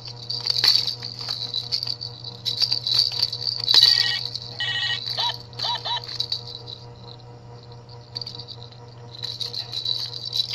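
Plastic baby rattle toy shaken by hand, its beads rattling in irregular bursts. It goes quieter for a couple of seconds past the middle, then picks up again near the end.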